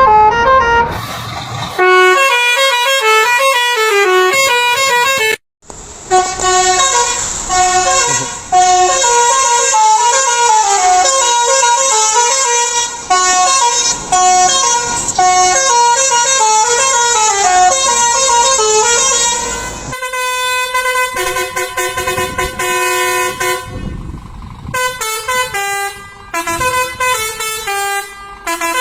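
Lorry telolet horns, multi-note air horns playing short melodic tunes that step up and down in pitch. Several separate horn tunes follow one another with sudden changes between them, including a brief dropout about five seconds in and a held chord of notes around twenty seconds in.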